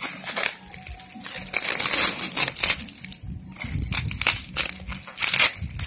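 Thick packing tape and wrapping being peeled and crumpled off a parcel: dense, irregular crackling and crinkling.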